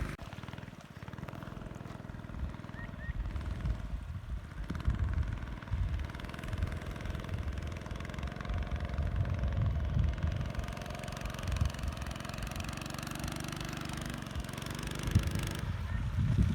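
A small boat's motor running steadily, with wind buffeting the microphone in gusts.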